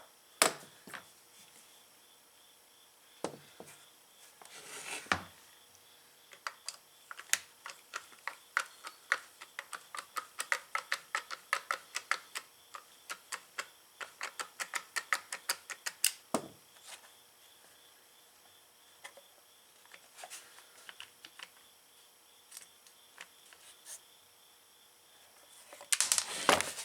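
Small hand tools clicking and tapping against the plastic and metal parts of a small four-stroke trimmer engine during disassembly, with a run of quick ticks in the middle, about three or four a second, and a few louder knocks near the end.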